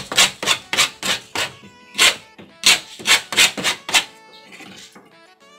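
A flat metal hand file rasping in quick downward strokes along the edge of a board faced with Formica laminate, trimming the overhanging laminate flush. About a dozen strokes come in the first four seconds, then they stop.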